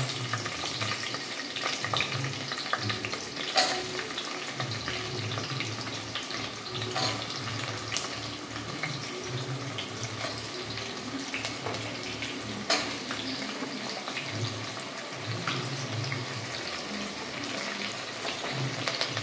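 Onions frying in hot oil and ghee in a pressure cooker: a steady sizzle, with a few sharp clicks of a spoon stirring against the pot.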